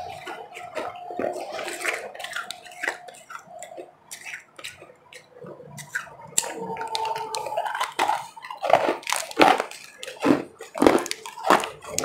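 Close-miked crunching and chewing of refrozen powdery ice, bitten off a chunk held at the mouth. The bites come sparse and fairly soft at first, then dense and loud in the second half.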